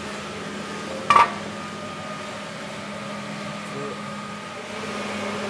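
Steady mechanical hum of workshop machinery, with a single sharp clank about a second in that rings briefly.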